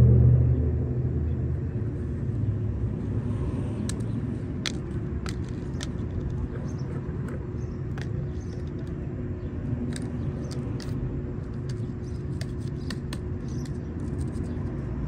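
Steady low rumble of road traffic, loudest at the start and easing off over the first couple of seconds, with scattered sharp clicks from about four seconds in.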